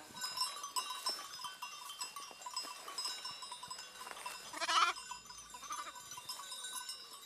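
Sheep bells tinkling and clinking from a grazing flock, with a single lamb bleat about four and a half seconds in.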